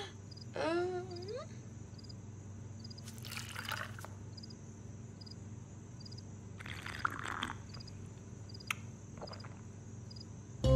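Quiet night-time room ambience: a steady low hum under faint, evenly repeating cricket chirps. A short gliding vocal sound comes about a second in, and two brief rushing noises come around three and seven seconds in.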